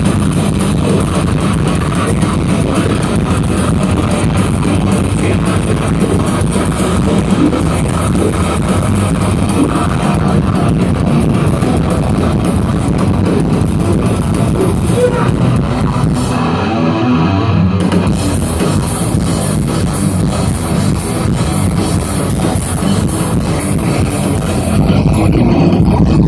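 A rock band playing live: electric guitar over a drum kit in an instrumental passage with no singing. About two-thirds of the way through, the bass and cymbals drop out for a moment while the guitar carries on, then the full band comes back in.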